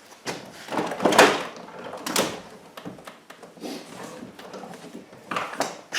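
Interior door trim panel of a Chevy/GMC pickup being worked loose by hand: several separate scrapes and knocks of plastic against the door, with quieter handling noise in between.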